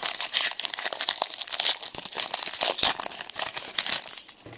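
Foil wrapper of a trading-card pack being torn open and crinkled by hand, a dense, irregular crackling that dies away near the end.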